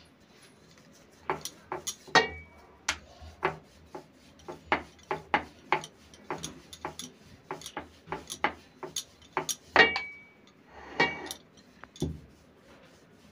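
Wooden rolling pin knocking and clicking on a granite rolling slab as a ball of oiled dough is rolled out: sharp irregular knocks, about two a second, a few with a short ring, stopping near the end.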